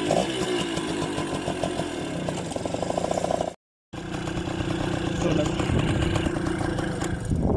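Yamaha V50's small two-stroke single-cylinder engine running just after starting on the choke, its revs wavering, with a complete gap in the sound about three and a half seconds in before it runs on steadily.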